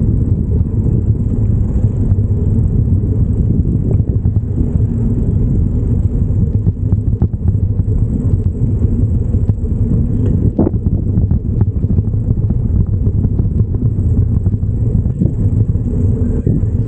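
Steady low rumble of riding a bicycle through city streets, with wind and road noise on the microphone. There is a short sharp click about ten and a half seconds in.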